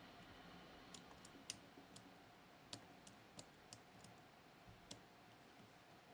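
Faint, irregular clicks of a lock pick probing the pins of a Miwa JC (Kaba Star Orion) dimple lock, about a dozen scattered over a few seconds.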